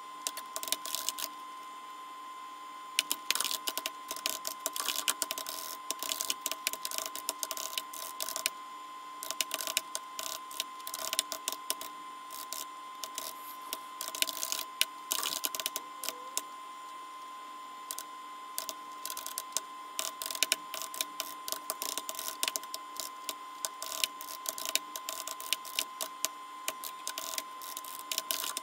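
Typing on a computer keyboard: quick runs of sharp key clicks in bursts, with a few short pauses. A faint steady hum lies underneath.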